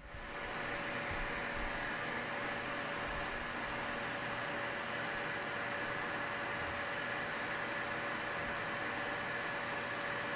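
Inexpensive vacuum cleaner running steadily, a rushing air noise with a few constant whining tones, as it sucks air through a perforated MDF vacuum clamp bed that is holding a plywood board down.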